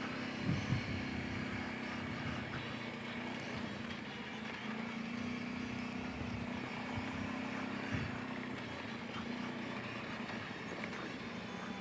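Kawasaki Brute Force 750 ATV's V-twin engine running at a steady low, even pitch, with a few faint knocks.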